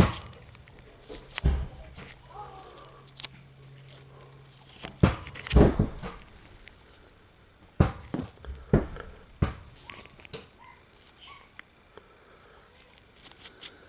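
Irregular clicks and knocks of a ratchet and its small metal parts being handled and set down as it is taken apart.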